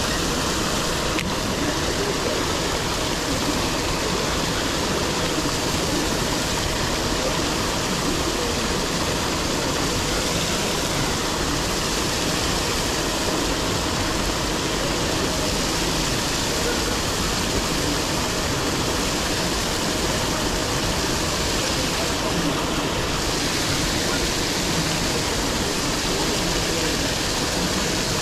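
Paddlewheel aerators churning and splashing the pond water, a steady rushing noise.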